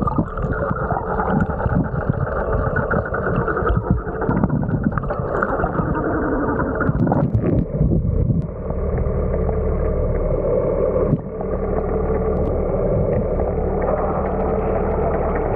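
Sound heard through a submerged camera beside a boat's hull: muffled rushing and gurgling water with a steady engine hum carried through the water. The hum turns smoother and more even about halfway through.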